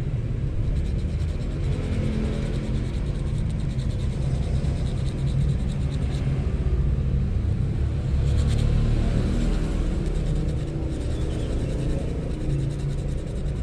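A steady low rumble, with faint scratchy rubbing of sandpaper against the point of a small fishing hook.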